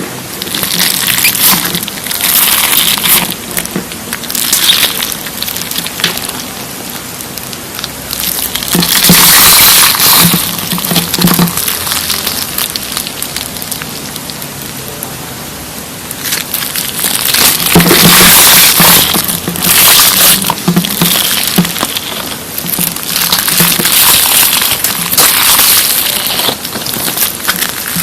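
Slime being squeezed and pressed by hand, giving wet crackling and popping squishes in repeated swelling stretches.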